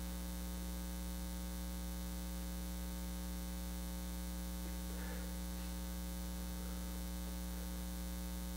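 Steady low electrical mains hum with a ladder of higher overtones, carried through the church sound system. A faint brief rustle about five seconds in.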